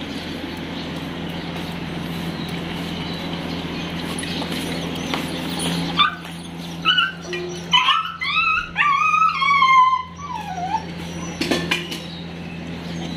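A dog whining and yelping: a run of short, high-pitched whimpers about halfway through, ending in a longer whine that falls in pitch, over a steady background hum.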